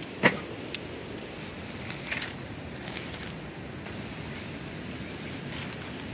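Tent pole and nylon tent fabric being handled: a sharp click about a quarter second in, a lighter click half a second later, and a brief rustle about two seconds in, over a steady background hiss.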